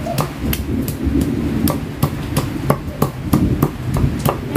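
A knife chopping spices on a cutting board, with a run of sharp knocks at about three or four a second.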